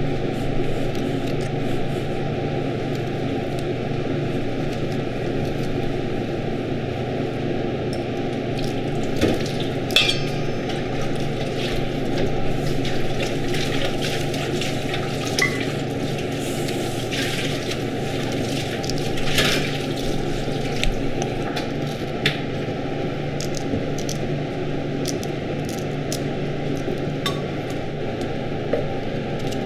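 Scattered light clicks and clinks of a small knife and roselle seed pods against a stainless steel bowl as the pods are pushed out of the calyces. A steady background hum runs underneath.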